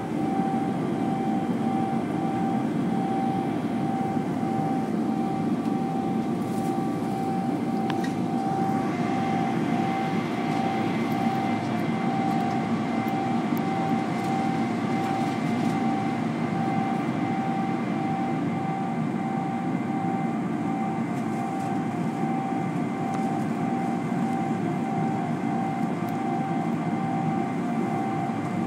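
Airliner cabin noise during the taxi to take-off, heard from inside the cabin: a steady jet engine rumble with a steady whine over it.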